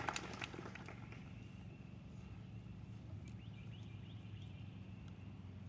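Scattered clapping dying away in the first half second, then quiet open-air ambience with faint bird chirps over a steady thin high tone.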